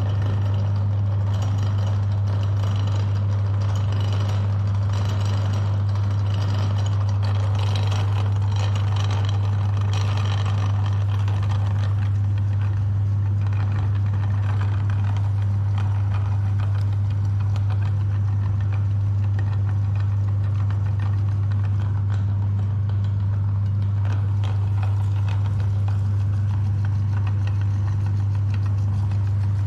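Electric meat grinder motor running steadily, with a strong deep hum and a rough, scratchy layer above it that is busier in the first half.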